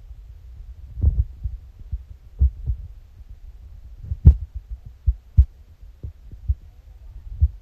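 Muffled, irregular low thumps over a steady low rumble: handling noise from a phone being held and moved while it streams. The loudest thump comes a little past the middle.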